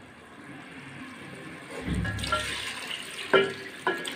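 Rice poured from a plate into an aluminium pot of peas in water, starting about two seconds in with a thud and a splashing rush. Two sharp clinks near the end, of the plate against the pot's rim.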